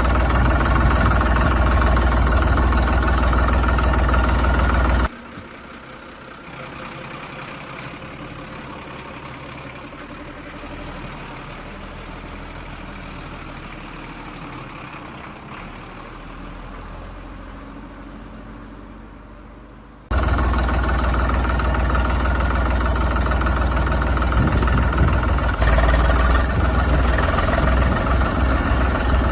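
Heavy diesel-type engine idling with a deep, steady throb. It cuts off suddenly about five seconds in, leaving a much quieter stretch, and comes back just as loud about twenty seconds in.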